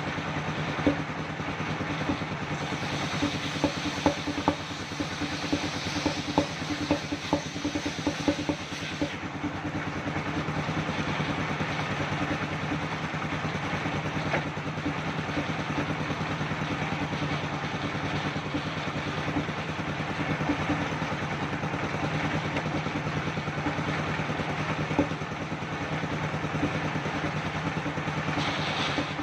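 An engine-driven circular sawmill rig running with a steady hum and whirr, with scattered sharp clicks and knocks in roughly the first nine seconds.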